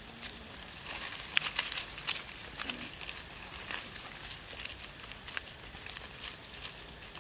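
Outdoor ambience over dry leaf litter: irregular small crackles and clicks, like dry leaves being rustled and stepped on, over a steady thin high-pitched tone and a light hiss.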